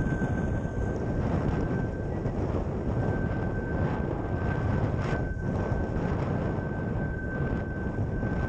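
Wind buffeting the action camera's microphone and water rushing past a windsurf hydrofoil board sailing at speed, a steady rumbling roar. A thin, steady high whistle runs through it, dropping out briefly about two seconds in.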